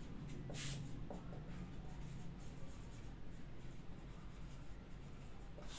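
Felt-tip marker writing on a whiteboard: soft rubbing strokes as letters are drawn, with one louder stroke about half a second in. A faint steady low hum sits underneath.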